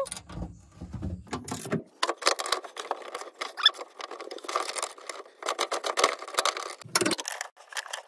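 Socket ratchet clicking rapidly as the seat-belt mounting bolt is tightened against a wrench, with metal tools knocking; from about two seconds in the sound is sped up, the clicks coming in a dense rattle.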